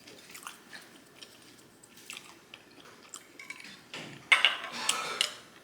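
Close-miked eating sounds: quiet chewing with small mouth clicks and ticks. About four seconds in comes a louder clatter of utensils against dishes, lasting about a second.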